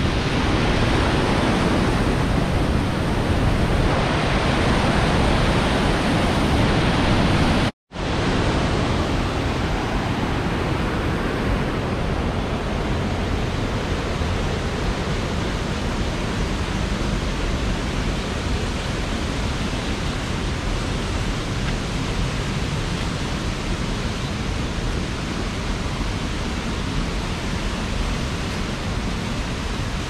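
Steady rush of a rocky stream's rapids and white water. The sound cuts out for a moment about eight seconds in and returns a little quieter.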